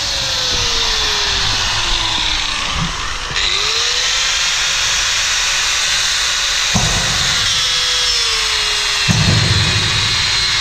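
Corded angle grinder running with its disc cutting through metal. Its motor pitch sags slowly as the disc bites, recovers when it eases off, then sags again near the end.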